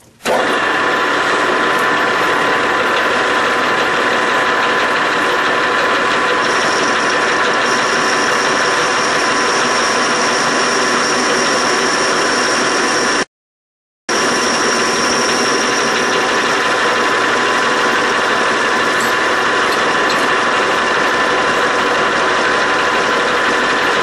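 Metal lathe running steadily while the tool squares a shoulder on a 4140 steel bar, with several steady tones. A higher whine joins about six seconds in and fades out about two-thirds of the way through. The sound breaks off for a moment just past halfway.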